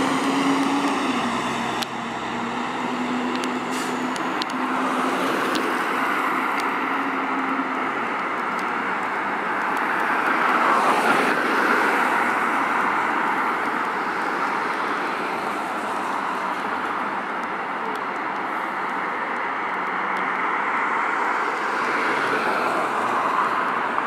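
2010 Spartan Gladiator fire engine's diesel engine pulling away without a siren, its steady note dropping in pitch about a second in and fading as it goes. It is followed by a car passing, loudest around eleven seconds in, and steady street traffic noise.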